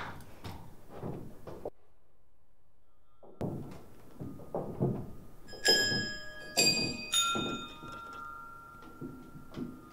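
Knocks and footsteps on a wooden stage, cut by a short dead-silent gap, then three bell-like metallic strikes a little over half a second apart, each ringing on, the last leaving a long steady ring.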